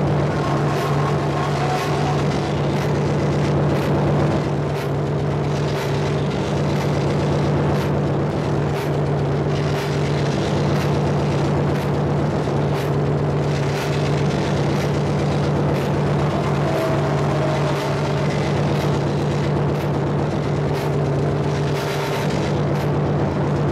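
Live power electronics noise played on a mixer and patched electronics: a dense, loud wall of distorted noise over a steady low drone, with a regular high pulse about twice a second.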